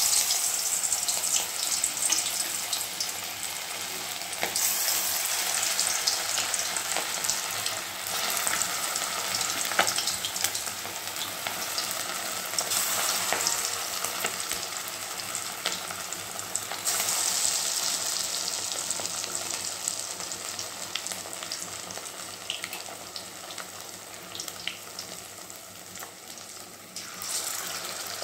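Chicken pieces coated in cornflour batter deep-frying in hot oil in a metal wok: a steady crackling sizzle that swells every few seconds as more pieces are dropped in.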